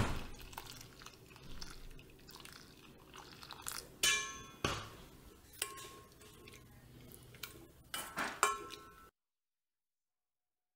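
A metal spoon clinking and scraping in a stainless steel bowl of chickpeas and water, the bowl ringing after the louder strikes around four seconds and eight seconds in.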